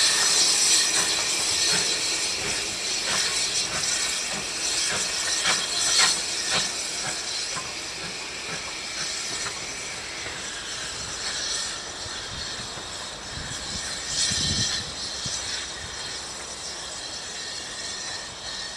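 Steam locomotive on the move, a train passing with a loud steady hiss of steam and a run of sharp clicks from wheels over rail joints in the first half. The sound fades gradually as the train draws away.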